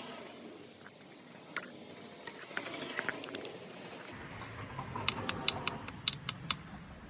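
Sharp metallic clicks and taps from small metal parts and tools being handled: a few scattered clicks, then a quick cluster of about eight in the second half.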